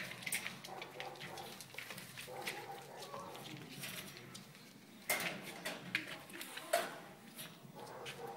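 Puppies about six weeks old scuffling and play-fighting on a vinyl floor, with claws clicking and short squeaky puppy yips. There are louder bursts about five seconds in and again nearly seven seconds in.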